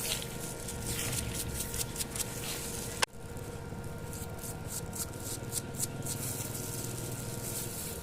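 Rubbing and scraping handling noises from work on a bicycle pedal, with one sharp click about three seconds in, over a steady faint hum.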